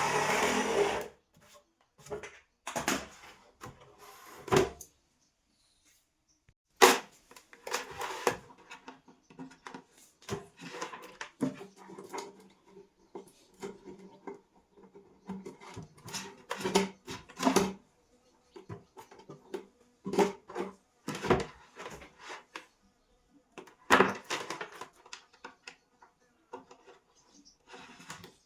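Irregular clicks, knocks and rubbing of parts being handled and fitted by hand, with a sharper knock about seven seconds in.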